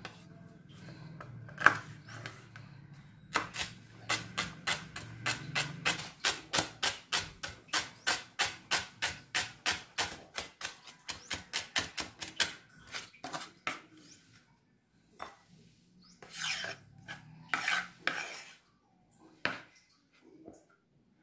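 Chef's knife chopping celery on a wooden cutting board: quick, even knocks of the blade on the board, about four a second, for some ten seconds. Near the end come a few scattered scrapes and knocks.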